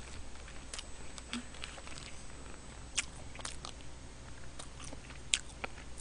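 Close-miked eating of budae-jjigae (Korean army stew): chewing and mouth sounds, with a few short sharp clicks scattered through.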